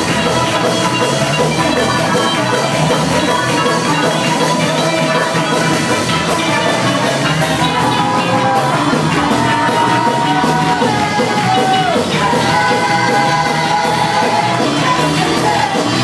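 Live church worship music from a band with keyboard and drums, with singers holding long notes in the second half, over a congregation clapping along.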